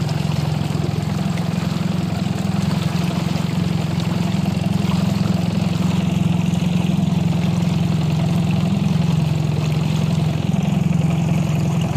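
Small outboard motor on an inflatable boat running steadily, a constant low engine hum with no change in speed.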